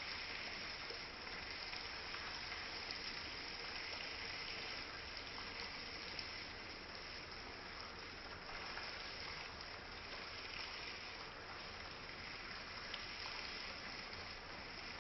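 Small stream babbling and trickling, a steady rush of flowing water with a few faint drip-like ticks.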